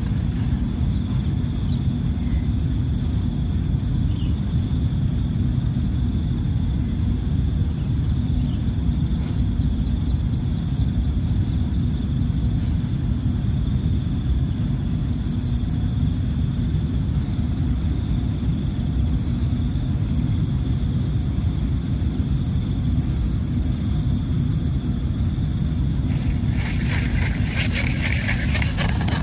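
Wind rumbling steadily on the microphone outdoors, with a faint steady high whine above it. A short rasping hiss comes about three seconds before the end.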